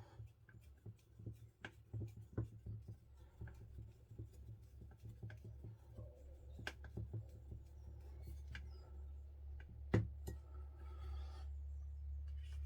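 Scattered light clicks and taps of a hex driver, screws and small kit parts being handled during RC car assembly, with one sharper knock about ten seconds in, over a low steady hum.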